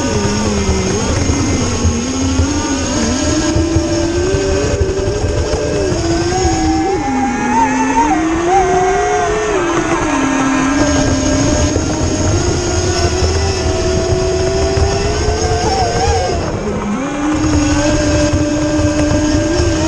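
Electric 6S RC speedboat running on the water, its brushless motor whining with a pitch that rises and falls as the throttle and the boat's distance change, over a steady rush of water.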